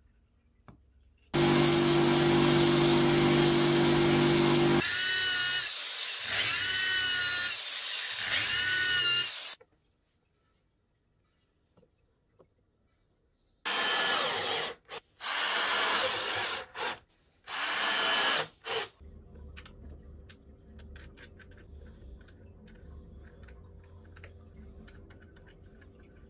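Cordless drill/driver running in bursts: one long steady run, then three runs that spin up, hold and wind down, then after a pause four short bursts as it drives wood screws into plywood. Faint clicks and handling noise follow.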